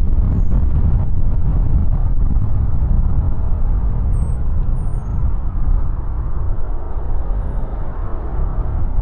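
Large jet aircraft landing: a loud, steady jet rumble that swells just before and slowly eases off. A few faint high bird chirps sound above it.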